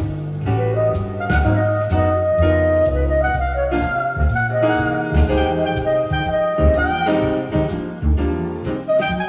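Jazz instrumental music played back through a Yamaha CA-2000 stereo amplifier: a held, wind-like melody over a walking bass line and steady drum hits.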